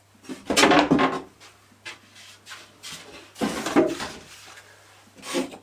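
Window blackout covers being taken down by hand: three bursts of scraping and rubbing, the loudest about half a second in, another near four seconds and a short one near the end.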